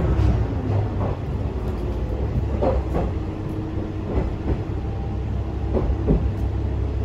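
Diesel railcar rolling slowly with a steady low engine and running rumble. Its wheels clack over rail joints and points in pairs, about every second and a half.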